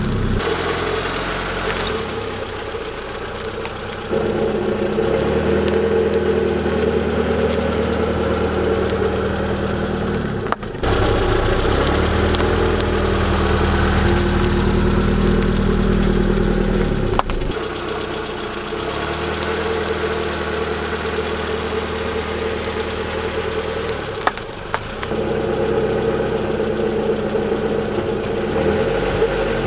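Car engine running at low revs, rolling slowly, its steady hum changing abruptly a few times. A couple of short sharp cracks sound partway through.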